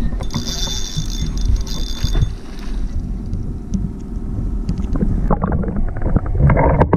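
Wind buffeting the microphone over the rush of water beside a moving boat. About five seconds in the sound turns muffled as the camera goes under water, with water rushing and many short knocks.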